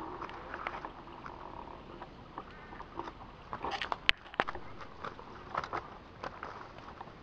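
Footsteps through dry leaves and undergrowth, with irregular crackling and twigs snapping; a burst of louder cracks about four seconds in, the sharpest a single snap.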